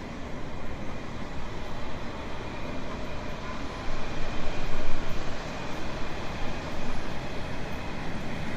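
Train running along the rails: a steady rumbling and rattling noise, swelling louder for about a second around the middle.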